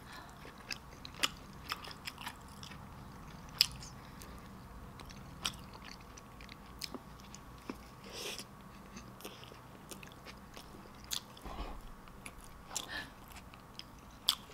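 A person chewing and biting into a sloppy joe sandwich on a soft bun: irregular wet mouth clicks and smacks, a few sharper than the rest.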